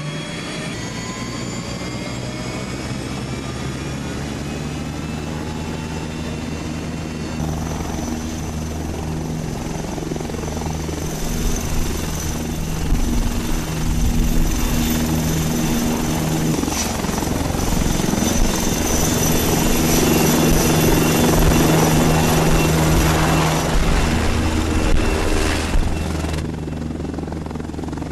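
Tiger armed reconnaissance helicopter's twin turboshaft engines and rotor running, with a steady high whine over the rotor noise. It grows louder from about ten seconds in and drops back near the end.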